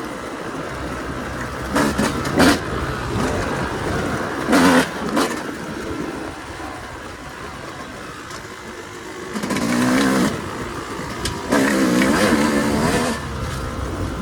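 Yamaha YZ250 two-stroke dirt bike engine being ridden, with several short blips of throttle in the first half and two longer revs in the second half, falling back to a lower run between them.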